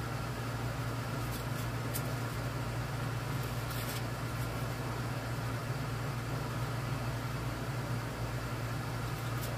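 A steady low machine hum at one unchanging pitch, with a few faint light clicks.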